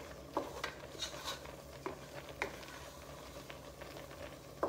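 Wooden spoon stirring a butter-and-flour roux in a saucepan, with irregular scrapes and light knocks of the spoon against the pan, over a low steady hum.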